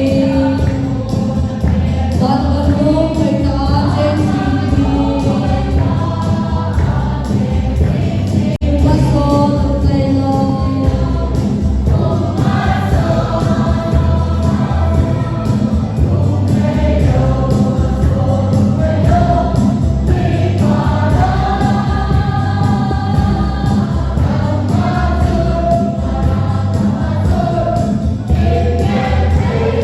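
Music: a choir singing a gospel-style song over instrumental backing.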